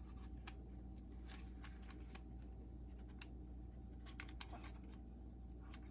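Faint, scattered light clicks and ticks from handling the small plastic and metal parts of an opened cassette Walkman, over a steady low hum, with two slightly sharper ticks about four seconds in.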